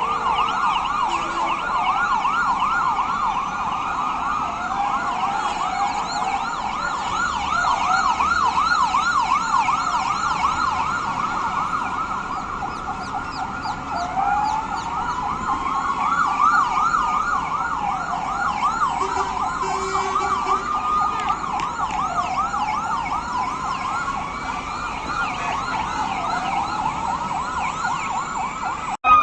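Several emergency-vehicle sirens sounding at once, overlapping fast yelping sweeps. About halfway through, a slower siren wail that rises and falls every few seconds joins them.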